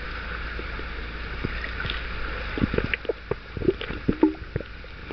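Underwater pool ambience picked up by a submerged camera: a steady hiss over a low rumble, with scattered short clicks and pops that come more often in the second half.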